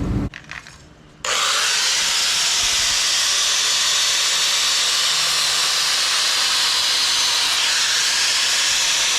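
Power drill running steadily, drilling a hole sideways to mount a catch can; a loud, even, hissing whir that starts suddenly about a second in.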